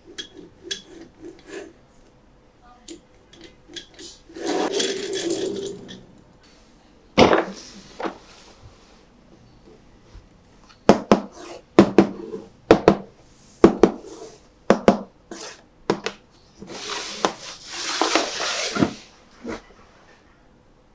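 Hands handling a toy monster truck and its packaging: scattered small clicks and taps, with two stretches of rustling and a quick run of sharper taps in the middle.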